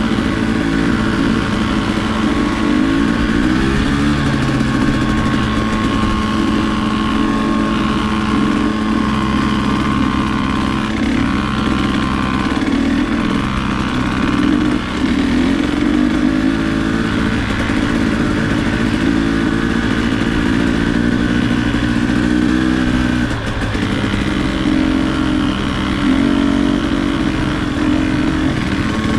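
Dirt bike engine running at trail-riding pace, heard close from the bike itself, its pitch rising and falling as the throttle opens and closes.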